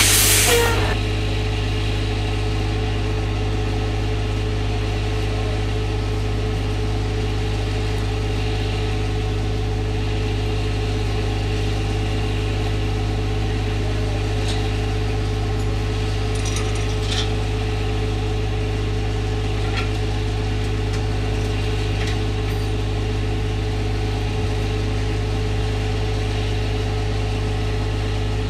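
Diesel engine idling steadily, an unchanging low drone, with a few faint ticks partway through.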